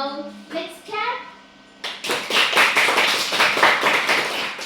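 Children's voices briefly, then a group of children clapping for about three seconds.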